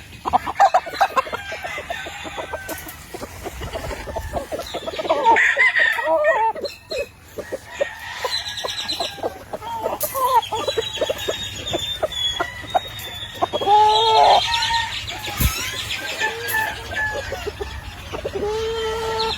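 Many roosters crowing over one another, with short clucking calls throughout; the longest crows come a little past the middle and near the end.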